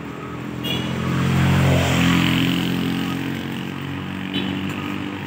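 A motor vehicle passes close by on the street, its engine and tyre noise swelling to the loudest point about two seconds in and then fading away.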